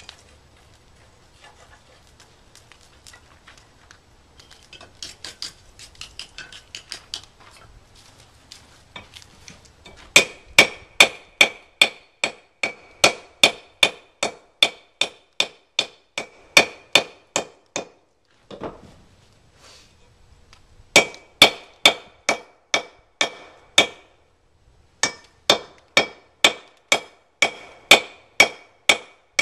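Hand hammer striking hot steel on an anvil while forge welding a 5160 and 1095 billet. Three runs of even blows, about two or three a second, each with a bright metallic ring, with short pauses between the runs. Lighter clinking comes before the hammering starts, about ten seconds in.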